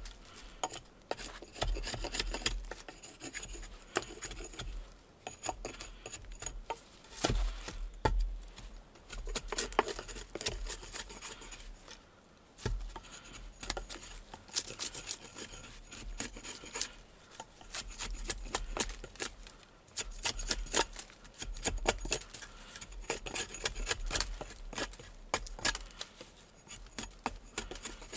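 Irregular scraping and rubbing strokes, broken by many short clicks and knocks, as of hand work on a rough surface.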